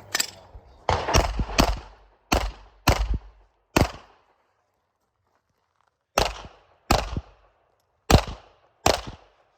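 Glock 34 9mm pistol firing a timed competition string: about eleven sharp shots, mostly in quick pairs, with a pause of about two seconds in the middle.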